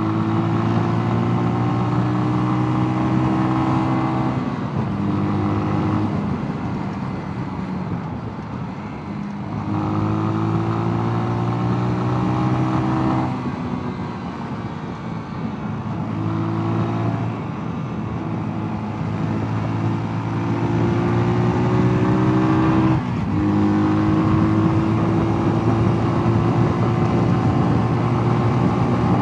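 Mash Two Fifty 250 cc single-cylinder motorcycle engine pulling under way. In each gear the pitch climbs slowly, then drops at a gear change, several times over.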